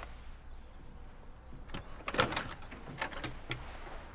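A few sharp knocks and clicks at a wooden front door about two seconds in as it is opened, then quieter clicks. Faint bird chirps come before them.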